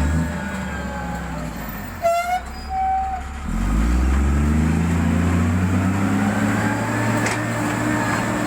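Heavy road-construction machine's diesel engine running. About two seconds in the engine sound dips and a short horn-like toot sounds, then the engine revs up and holds a steady, higher speed.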